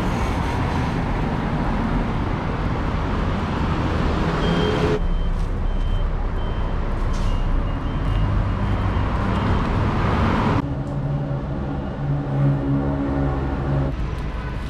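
Steady road traffic noise with vehicle engines running. It changes abruptly about five and ten seconds in, and an engine hum stands out near the end.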